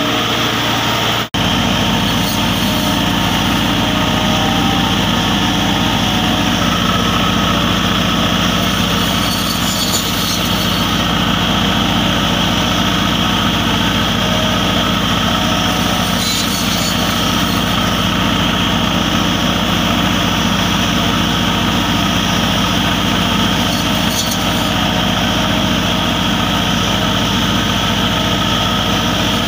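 Massey Ferguson 385 tractor's diesel engine running steadily, driving a front-mounted hydraulic hedge cutter with rotary blades. The sound drops out for an instant a little over a second in.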